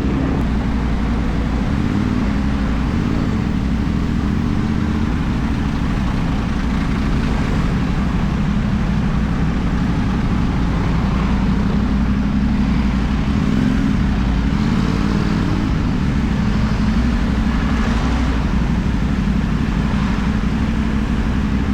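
CFMoto 450NK's parallel-twin engine running steadily through a LeoVince aftermarket exhaust: a low, even drone with no sharp revs.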